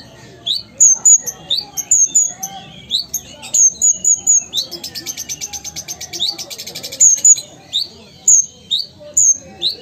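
Van Hasselt's sunbird (kolibri ninja) singing: a quick series of sharp, rising chirps, broken about halfway through by a fast, rattling trill lasting a couple of seconds.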